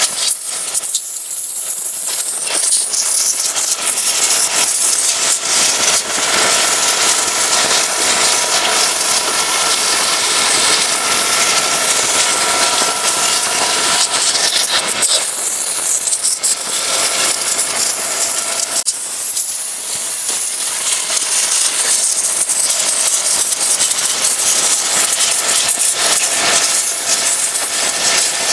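Pressure washer spraying water, a loud steady hiss with a faint steady whine from the machine underneath, easing off briefly a few times.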